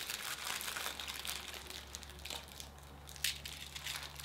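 Cellophane wrappers of fortune cookies crinkling as they are opened and handled, with a few sharper crackles in the last second or so.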